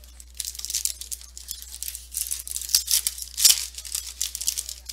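Foil wrapper of a trading card pack being torn open and crinkled by hand: a run of irregular crackles, with the loudest rip about three and a half seconds in.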